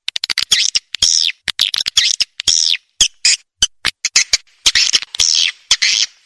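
Swiftlet lure call recording (suara panggil walet) used to draw swiftlets into a nesting house: short, high, buzzy twittering chirps alternating with rapid trains of sharp clicks. The sound breaks off abruptly into brief silences between the chirp and click bursts.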